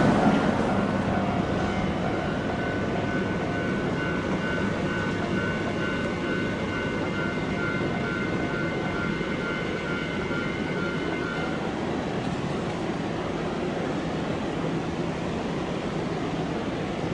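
Level-crossing warning bell ringing in a steady repeating pattern and stopping about eleven seconds in, while the rumble of a heavy vehicle that has just gone through the crossing fades away. Steady background noise remains.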